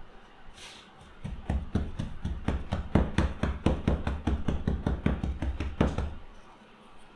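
Gloved hands patting a breaded chicken fillet down into a tray of breadcrumbs: a quick, even run of soft thuds, about four a second, starting about a second in and stopping near the end.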